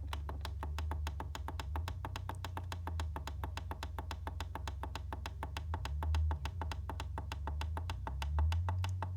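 Emerson SmartSet clock radio tuning step by step through the FM band: a rapid, even run of clicks, about six or seven a second, over a low hum. The clicking stops near the end as the tuning reaches the station.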